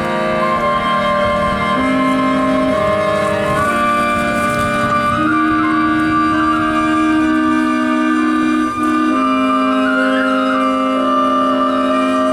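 Live instrumental music: a high melodic line of long held notes, with a brief flourish near the end, over slowly changing sustained chords.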